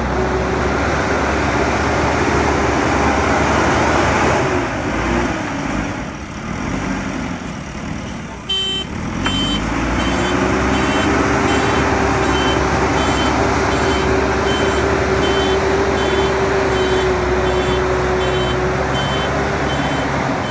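JCB 3DX Super backhoe loader's diesel engine revving under working load, easing off for a few seconds, then revving back up and holding high. From about halfway its reversing alarm beeps steadily, about once a second.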